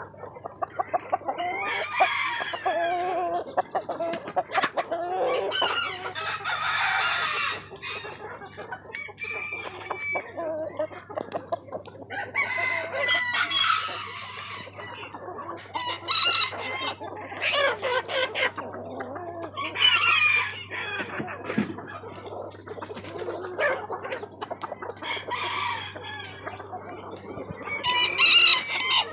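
Several roosters crowing again and again, the crows coming every few seconds and sometimes overlapping, with chickens clucking in between.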